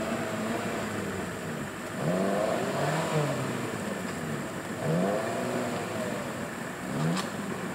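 Off-road 4x4's engine revving in repeated bursts, each one rising in pitch, as the vehicle tries to climb out of deep swamp mud where it is stuck. A single sharp click near the end.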